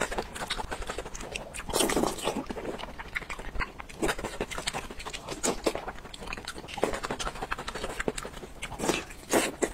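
Close-miked wet eating sounds: slurping, sucking and chewing of sauce-soaked food, with sticky squelches from gloved hands tearing it. There are louder slurps about two seconds in and again near the end.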